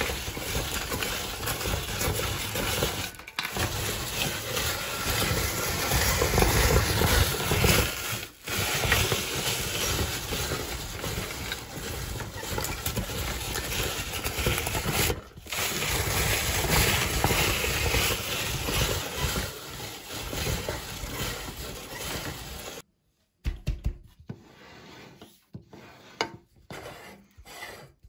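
Hand-cranked metal meat grinder crunching dry, crunchy sticks into crumbs: a continuous grinding and crackling, with brief dips about 3, 8 and 15 seconds in. It cuts off suddenly near the end, leaving a few light clicks and knocks as hands handle the grinder.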